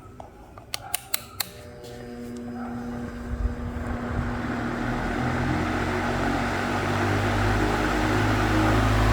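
Ventisol VP-60 60 cm, 160 W wall fan starting up: a few sharp clicks, then the motor hums and the blades spin up, the rush of air growing steadily louder.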